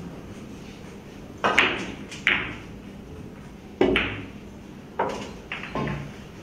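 Pool balls knocking during a shot on a Chinese eight-ball table: the cue striking the cue ball and ball-on-ball clicks, about six sharp knocks spread over four seconds starting about a second and a half in.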